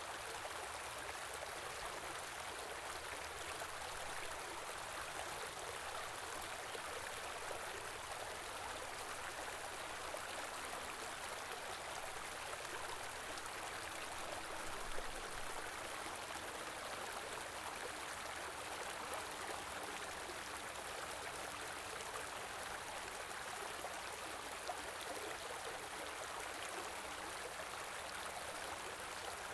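Stream flowing steadily, an even wash of running water, with one brief louder blip about halfway through.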